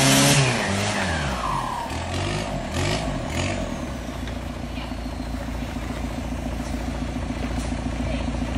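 A song with singing that fades out over the first few seconds, with a falling glide about a second in, leaving a steady low hum.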